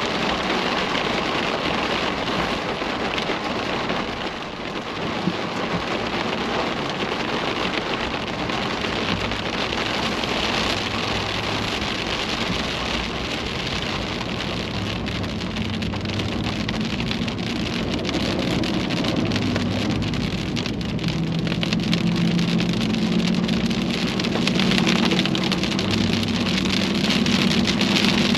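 Rain pelting a car in a steady noisy wash as it drives, with the car's low engine and road hum coming in about a third of the way through and shifting up and down in pitch.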